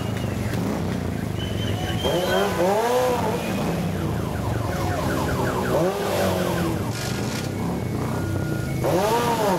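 Many motorcycle engines idling and rolling by at walking pace, a steady low rumble with repeated short revs that rise and fall in pitch.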